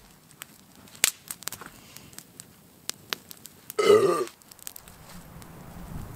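A man's short throaty vocal sound, burp-like, about four seconds in, after a sip of scotch. Light scattered clicks and taps come before and after it.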